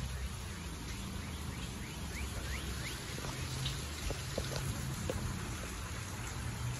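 Steady rain falling, an even hiss, with a few short faint rising chirps high up about two to three seconds in.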